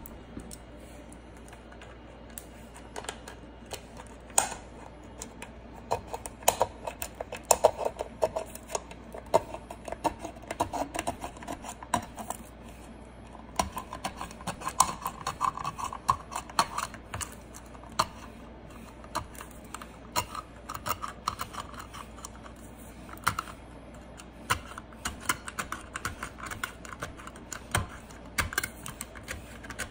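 P-51 folding military can opener cutting around the lid of a steel food can: a long irregular run of sharp clicks and crunches, one for each short rocking stroke that punches the blade through the lid. It starts a few seconds in.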